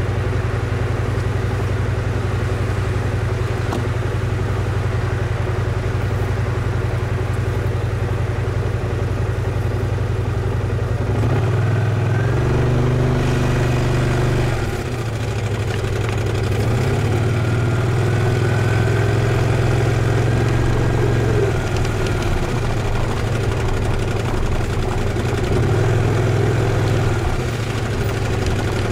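BMW C 650 GT maxi-scooter's parallel-twin engine idling steadily while stopped, then opening up and pulling away about eleven seconds in. Its pitch rises and falls in several surges as it rides off.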